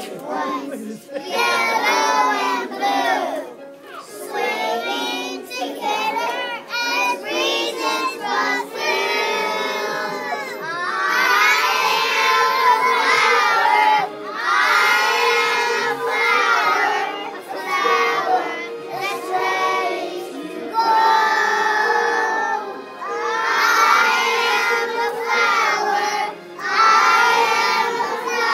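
A group of young children singing a song together, in phrases of about two seconds with short breaks between.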